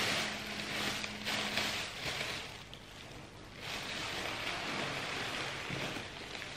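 Thin plastic carrier bag rustling and crinkling as it is handled and opened inside a cardboard box, easing off briefly about halfway through.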